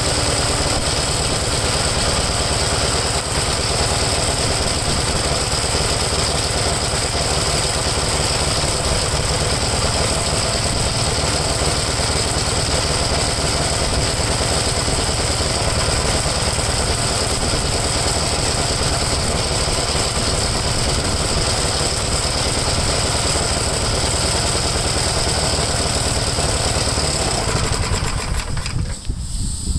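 1962 Gravely LI walk-behind tractor's single-cylinder engine running steadily, then dying a couple of seconds before the end as a rag is pressed over the carburetor intake to choke it off, because the kill switch doesn't work. The owner thinks it is running too rich.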